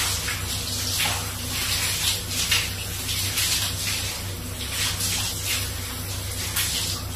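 Shower running, water spraying and splashing unevenly as hands work through wet hair.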